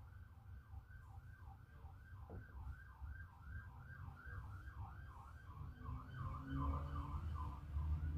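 Emergency vehicle siren in a fast yelp, sweeping up and down about two or three times a second, faint over a low rumble that grows louder near the end.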